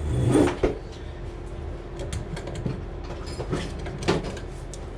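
Wrench working an old brass tub/shower valve stem: a louder metal scrape about half a second in, then a few scattered sharp metallic clicks.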